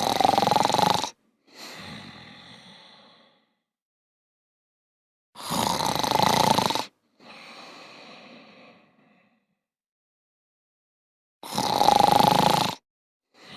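A person snoring: three loud snores about six seconds apart, each followed by a quieter, breathy exhale.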